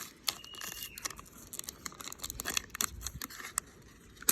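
Trading cards and their packaging being handled: scattered small clicks and light rustling, with a sharper click near the end.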